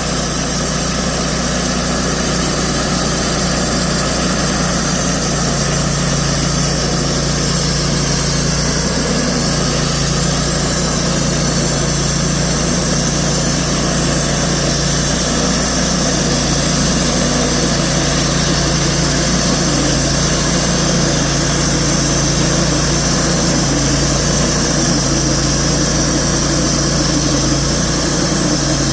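Small sawmill's engine running steadily at a constant speed.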